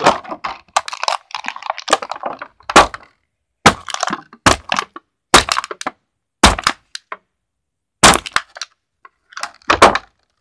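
Stiff clear plastic blister packaging crackling as it is handled and pulled apart: a dense crinkling at first, then sharp, separate snaps about once a second.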